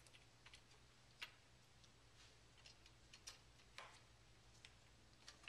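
Near silence broken by a handful of faint, sparse metal clicks as lock washers are handled and fitted onto a lawnmower's front drive axle.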